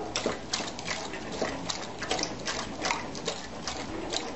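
A dog lapping water from a bowl: a steady run of quick wet laps, about four or five a second.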